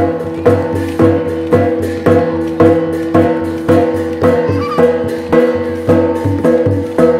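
Traditional Tai Yai (Shan) percussion music for the To dance: a drum and other percussion struck in a steady beat of about two strokes a second, with ringing pitched tones sustained between strokes.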